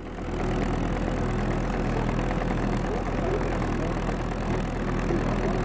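The Kubota engine of a Bryce Suma HD180 tracked post driver, running steadily.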